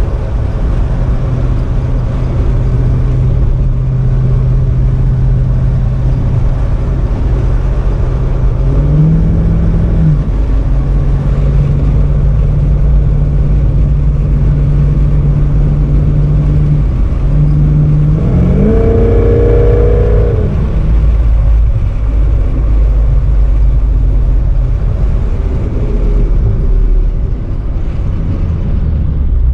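Engine of a 1948 Ford car running while it drives, a steady hum with a short rise in pitch about a third of the way in and a stronger rising rev about two-thirds of the way through before it settles again.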